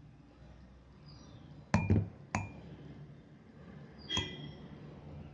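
A metal spoon clinks against glass, three times close together about two seconds in and once more about four seconds in, each with a short high ring, as coffee cream is spooned into a glass cup.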